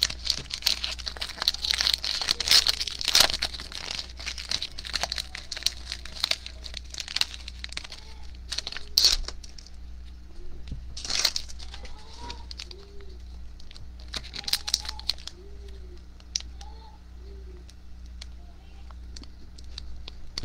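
Foil wrapper of a Trilogy hockey card pack crinkling and tearing as it is opened and peeled by hand, busiest in the first few seconds, then in sparser rustles. From about eight seconds in, faint short chirps repeat in the background.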